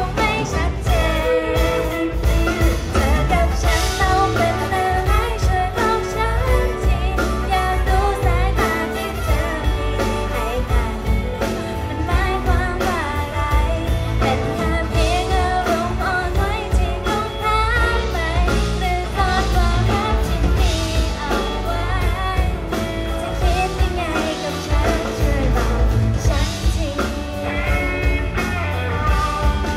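A live band playing a Thai pop song, with a woman singing the lead into a handheld microphone over drums and acoustic guitar, amplified through a PA.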